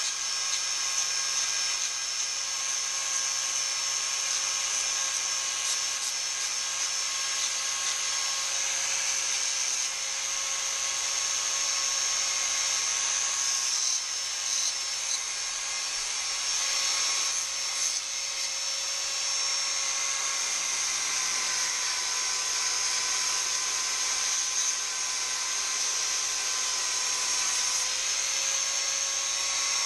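Handheld rotary tool engraving into a small aluminium plate, its motor running with a steady high-pitched whine and the bit scratching on the metal. The pitch sags slightly a little past the middle and comes back near the end.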